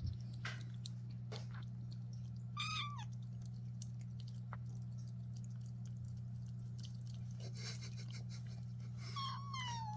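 A cat meows twice, two short calls falling in pitch, one about two and a half seconds in and one near the end, with a few faint clicks between, over a steady low hum.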